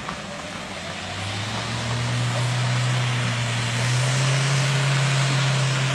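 Toyota Hilux pickup's engine pulling under load on a muddy uphill track: a steady low drone that comes in about a second in, grows louder and rises slightly in pitch.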